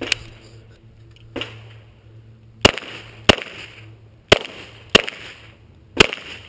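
Semi-automatic pistol firing six shots: one right at the start, then two quick pairs about half a second apart, then a single shot near the end. A softer knock comes about a second and a half in.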